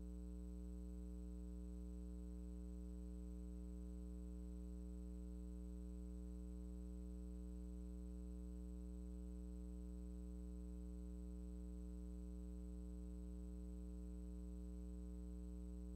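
Steady electrical mains hum with a stack of low overtones and a faint high-pitched whine.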